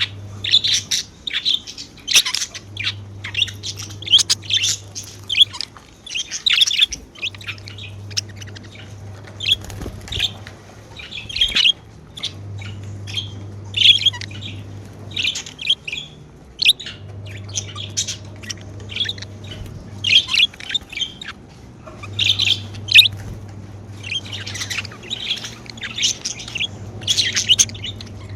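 Pet budgerigars chirping and squawking in a busy chatter of short, high chirps that come in bursts with brief pauses between.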